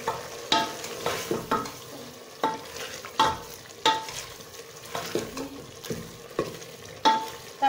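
Ladle scraping and knocking against the sides of a pressure cooker pot while minced meat is stirred and fried in oil, over a steady sizzle. The knocks come about once or twice a second, each with a short metallic ring.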